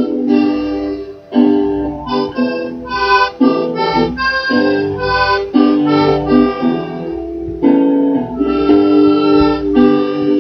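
Instrumental music: held chords that change every second or so, with no singing.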